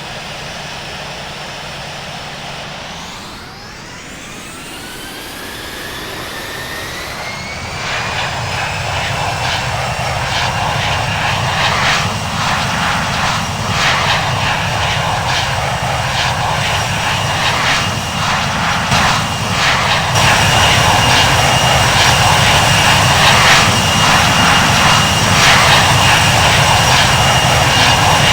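Airbus A330 jet engines spooling up: a high whine rises over several seconds, then holds steady and grows louder at high thrust, as in a takeoff run.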